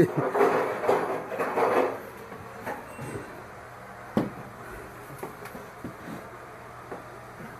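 Objects being handled: a rattling scrape for about two seconds, then a few scattered knocks, the loudest about four seconds in.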